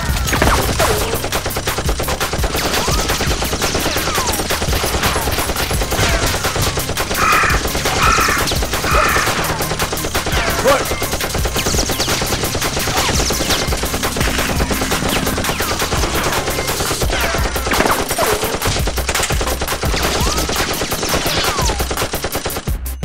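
Rapid automatic gunfire sound effects, shots following one another without a break, cutting off at the very end.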